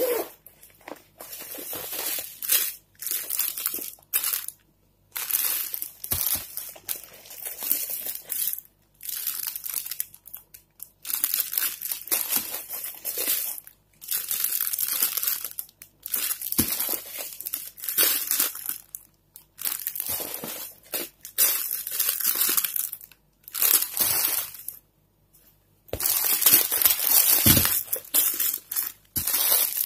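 Plastic wrappers of Indomie instant noodle packets crinkling as they are handled and lifted out of a bag, in many short bursts with brief pauses between.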